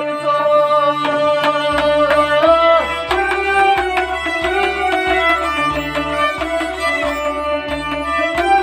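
Instrumental passage of a Kashmiri folk song: a harmonium holds a reedy melody while a long-necked lute is plucked in quick strokes. A low, steady drum beat of about two pulses a second comes in about two seconds in.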